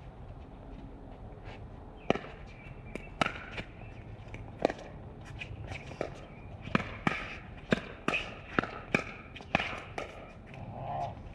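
A pickleball rally: paddles striking the hollow plastic ball and the ball bouncing on the court, about a dozen sharp pops starting about two seconds in and coming quicker in the second half.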